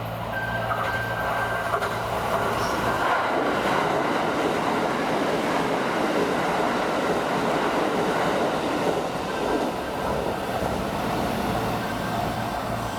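Electric train running along the track, a steady rumble of wheels on rails lasting about nine seconds. Its noise swells in a few seconds in and eases near the end, with a low steady hum before and after it.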